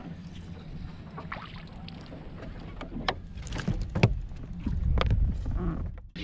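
Wind rumbling on the microphone in a small fishing boat, with a few sharp clicks and knocks about three, four and five seconds in, the loudest at about four seconds.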